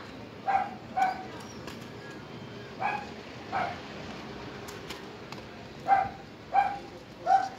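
A dog barking: seven short barks in groups of two or three, about half a second to a second apart.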